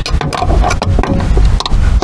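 Socket wrench on a long extension turning out a 14 mm seatbelt anchor bolt: a run of uneven clicks.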